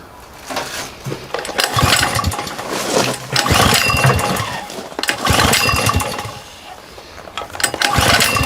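Sportsman GEN2000 portable generator's small engine being pull-started, loud in three bursts with quieter gaps between rather than a steady run.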